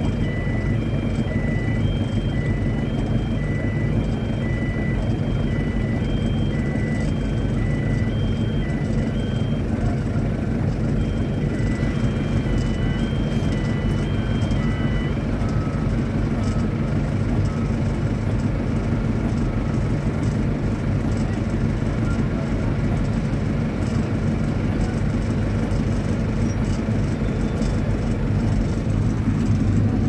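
Steady low drone of heavy piling machinery: a crane-hung hydraulic vibratory pile hammer working on a steel casing, with its power unit. Over the first half a high electronic beeping tune of short tones at a few pitches plays over it, like a machine warning alarm.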